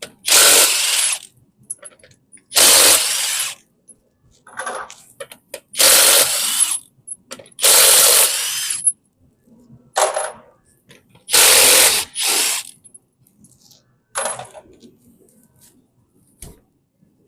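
An impact wrench hammering wheel bolts loose in five bursts of about a second each, one per bolt, with light metallic clinks from the socket and bolts between the bursts.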